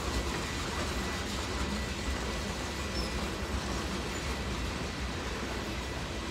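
Freight train of covered gondola cars rolling past: a steady, low rumble of steel wheels on the rails.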